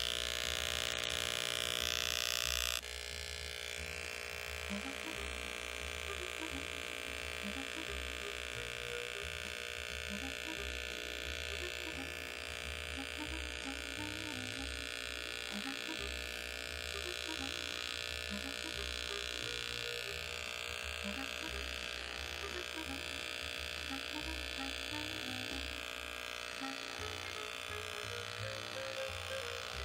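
Corded electric hair clippers running with a steady buzzing hum as they are run up the side of the head, cutting the hair short at the zero setting. The hum is louder for the first few seconds, then drops slightly and holds steady.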